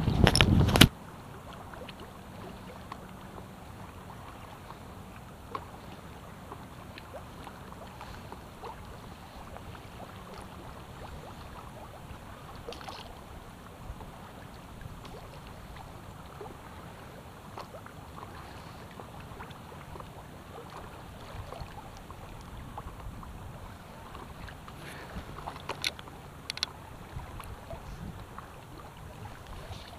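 Inflatable paddleboard drifting on a river: low, steady water lapping and trickling against the hull, with a few paddle splashes and clicks near the end. A short loud burst of noise in the first second.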